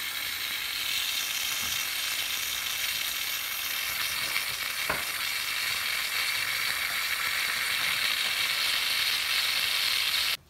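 Instant Pot steam release valve hissing steadily as pressurised steam vents through a paper towel held over it: a quick pressure release after pressure cooking. The hiss cuts off suddenly near the end.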